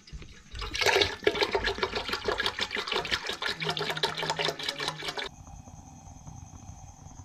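Milk pouring from a plastic bottle into a large aluminium pot, splashing in rapid irregular glugs. It cuts off abruptly about five seconds in, giving way to the quieter steady hiss of the gas burner under the pot.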